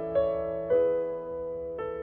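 Background piano music: a slow melody of single notes, three new notes struck in the two seconds, each ringing and fading.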